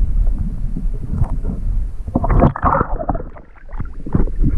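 Lake water sloshing and knocking against an action camera held at and just under the surface, a low rumble with scattered knocks and a louder burst of splashing about two and a half seconds in.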